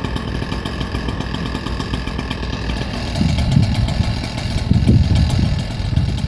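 An engine running steadily at idle, with fine rapid ticking in its sound and louder low rumbles about halfway through and again near the end.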